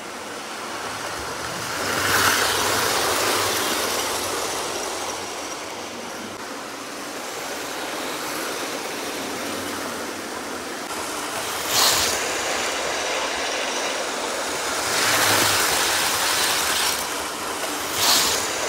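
Old Hornby OO-gauge model steam locomotive and its coaches running on the layout's track: a steady whirring motor and wheel rattle that grows louder as the train passes close. Not a quiet runner. Two sharp clicks, about twelve seconds in and near the end, as the wheels cross the track.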